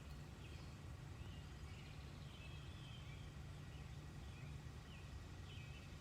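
Faint outdoor ambience: a steady low rumble with small birds chirping briefly several times.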